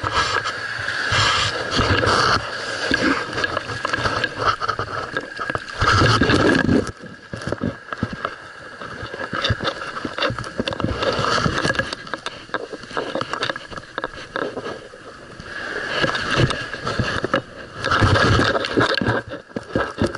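Muffled scraping, rubbing and knocking of the camera against a scuba diver's regulator hoses and gear as the diver moves, with irregular clicks over a surging wash of noise.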